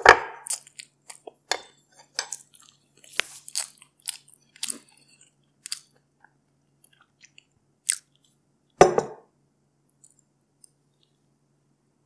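Close-miked chewing and mouth sounds of eating: irregular, crisp clicks that come thick at first and then thin out, with one louder mouth sound about nine seconds in.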